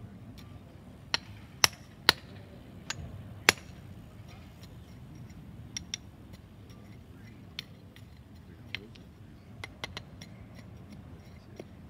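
Calceteiro's paving hammer tapping small stone cubes into place in a Portuguese mosaic pavement: sharp, ringing clinks at irregular intervals, the loudest few in the first four seconds and a quick cluster near the end.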